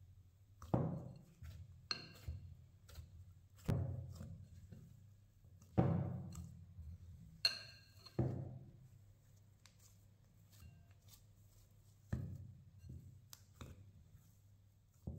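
Soft yeast dough being kneaded by hand in a glass bowl: dull thumps every two to three seconds as it is pushed and folded against the bowl, with soft squishing between. Twice, about two seconds in and past the middle, the glass bowl gives a brief ringing clink.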